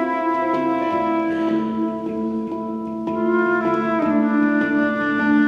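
Slow live ensemble music of held, ringing tones from singing bowls, handpan, transverse flute and keyboard. New notes enter about three to four seconds in.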